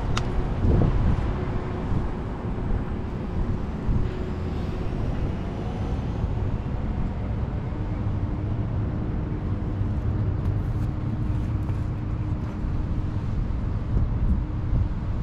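Wind rumbling on the microphone of a moving bicycle over city street traffic, with a sharp click right at the start and a steady low hum for several seconds in the middle.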